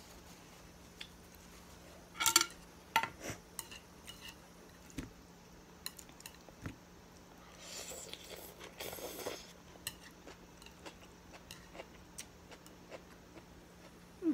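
Chopsticks clinking against a ceramic plate, with a few sharp ringing clinks about two seconds in, then a slurp of rice noodles lasting about a second and a half near the middle, followed by scattered light taps.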